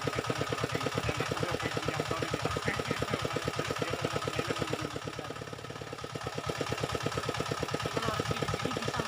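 An engine idling with a steady, fast chugging of about eight or nine beats a second, dipping a little in level for a moment around the middle.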